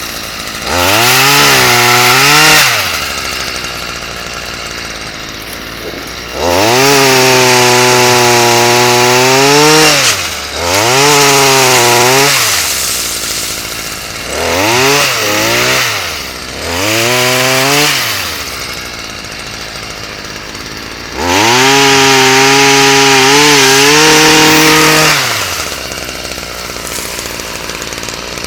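Chainsaw cutting through storm-broken trees: the engine revs up to full throttle six times, holding for a couple of seconds up to about four seconds each, and drops back to idle in between.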